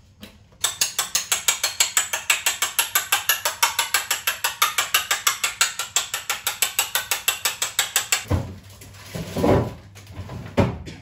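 An egg being beaten by hand in a small ceramic bowl, the utensil clicking rapidly and evenly against the bowl at about seven strokes a second. The beating stops about eight seconds in, followed by a few duller knocks and handling sounds.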